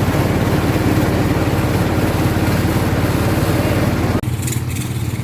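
Engine-driven rice machinery running steadily with a fast, even chugging rumble. About four seconds in, the sound cuts abruptly to a quieter, steady low hum.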